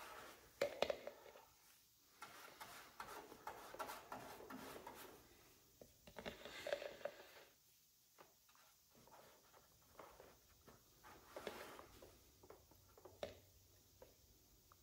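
Faint clicking and scraping of a brush being dipped in a plastic mixing cup of fiberglass resin and dabbed onto a fiberglass body panel, with rubber gloves rustling; the sharpest click comes about a second in.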